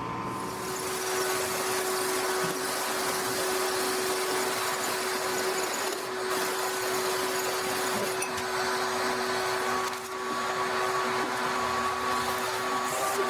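An electric motor running steadily, giving a constant airy whir with a steady hum. A second, lower hum joins in about two-thirds of the way through.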